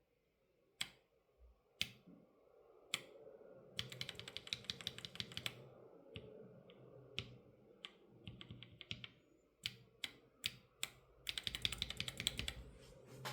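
Typing on unlubricated Kailh Choc low-profile switches with keycaps fitted, in a ZSA Voyager keyboard. A few single key clicks, then three quick runs of rapid keystrokes with single presses and pauses between.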